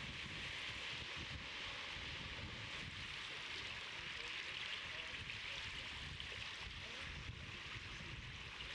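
Steady outdoor background noise: wind rumbling unevenly on the microphone over an even hiss, with no calls or distinct sounds from the owls.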